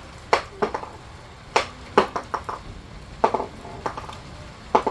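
Scattered heavy raindrops striking a hard surface, a dozen or so sharp irregular taps of varying loudness over a faint hiss, as the rain starts to come down.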